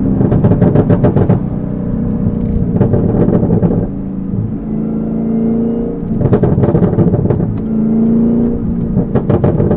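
Supercharged 6.2 L V8 of a ZL1 Camaro, fitted with a Rotofab cold air intake and an MRT cat-back exhaust, under hard acceleration in four loud bursts, with steadier, quieter running between them.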